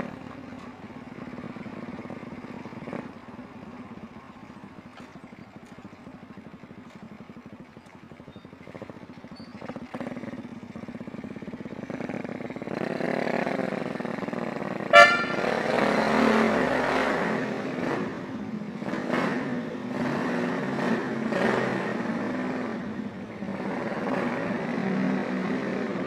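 Motorcycle engine running as the bike rides along, getting louder from about 13 seconds in as it turns into and descends into an underground car park. A brief high beep sounds about 15 seconds in.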